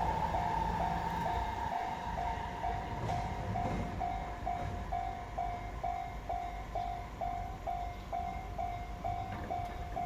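Japanese level-crossing warning bell ringing at about two strikes a second, over the low rumble of a train running on the tracks.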